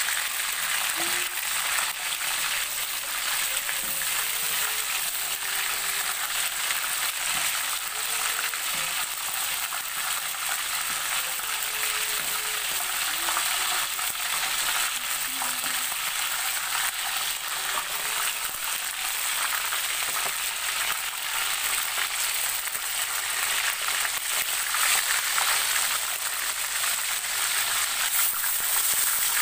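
Marinated chicken pieces deep-frying in hot oil in a wok: a steady sizzle with constant fine crackling, getting a little louder in the last few seconds.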